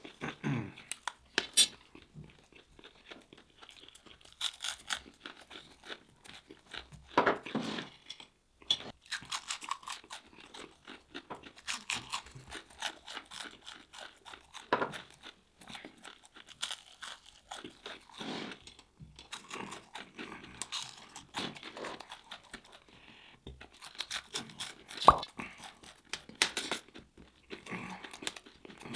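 Close-up chewing of crunchy fried seafood: irregular crisp crunches and bites, with a few sharper, louder crunches scattered through.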